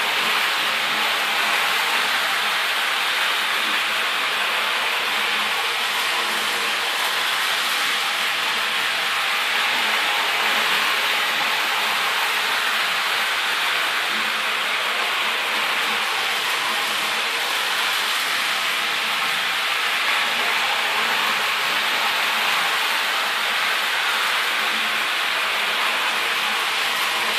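HO-scale model train running steadily: the whir of its small electric motor and its wheels rolling on the rails, an even hiss-like sound that holds at one level throughout.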